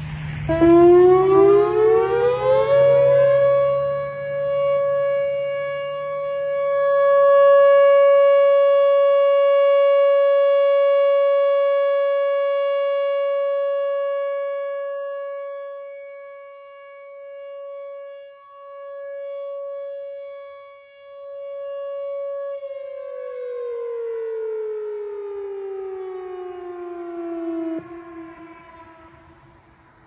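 Whelen WPS 4004 electronic outdoor warning siren sounding a steady alert tone. It winds up in pitch over about two seconds to a steady 560 Hz tone and holds it for about twenty seconds, swelling and fading in loudness as the rotating head turns. Near the end it winds down in pitch and stops.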